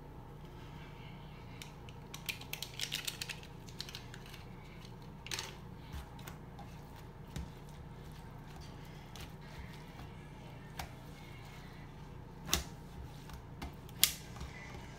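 Handling sounds from a damp cotton shirt being worked in a porcelain sink with a packet of Kool-Aid powder: scattered light clicks and crinkles, a quick run of them about two to three seconds in, and two sharper knocks near the end. A steady low hum runs underneath.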